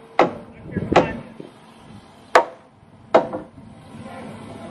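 Four hammer blows on a heavy timber top plate, sharp wooden knocks at uneven intervals, each with a short ring.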